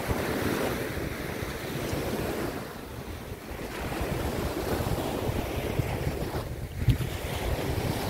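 Waves breaking and washing up a sandy beach, with wind buffeting the microphone. A brief thump just before the end.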